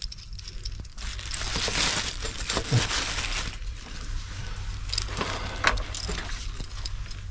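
Steel wall anchors and screws clinking and rattling as they are handled. A rustling, scraping stretch starts about a second in and lasts a couple of seconds, and a few sharp metal clicks come later.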